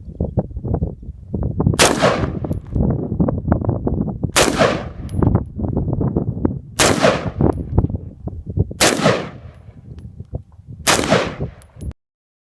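Five single shots from a Colt 6940 AR-15 rifle in 5.56 mm / .223, fired semi-automatically about two to two and a half seconds apart, each with a short ringing tail. A continuous low, rough noise runs between the shots.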